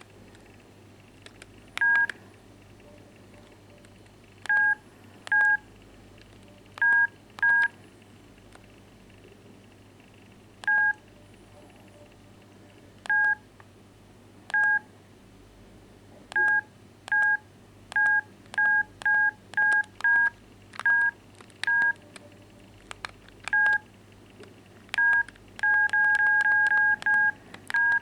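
Keypad tones of an Explay BM10 mobile phone as its keys are pressed. Short two-tone beeps come one or two at a time at irregular gaps, then a quick run of presses near the end.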